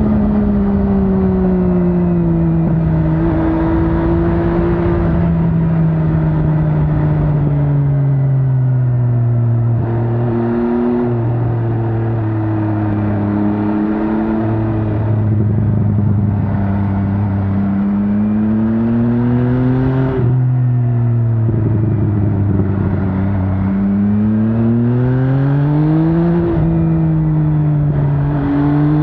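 MV Agusta Brutale 800's inline three-cylinder engine under way. The pitch falls over the first several seconds as the bike slows, holds low and fairly steady through the middle with a few brief breaks, then climbs twice near the end with a drop between, as on an upshift.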